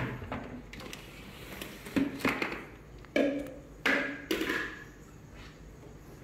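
A sharp knock right at the start, then a handful of short knocks and bumps about two to four and a half seconds in, fading to quiet near the end.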